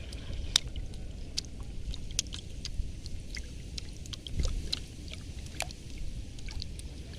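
Water sloshing and splashing, with many irregular sharp ticks and a low wind rumble on the microphone.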